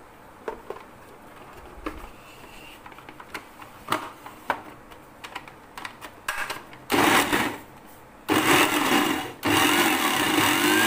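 Plastic clicks and knocks as a food processor's lid and feed tube are fitted, then the food processor's motor runs in three pulses, about a second, a second, and two seconds long, chopping a cooked meat-and-lentil kabab mixture with bread and herbs.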